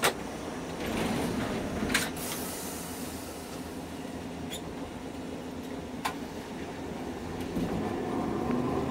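Hankai Tramway streetcar running along its track, heard from inside the car: steady wheel-and-track running noise with a few sharp clicks.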